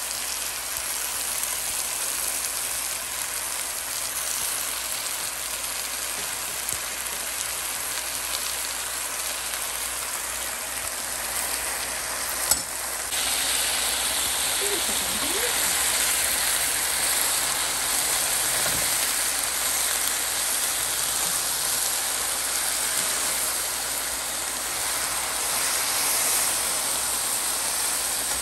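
Red amaranth greens (lal bhaji) frying in a metal pan, a steady sizzle. A sharp click comes about halfway through, and after it the sizzle is a little louder.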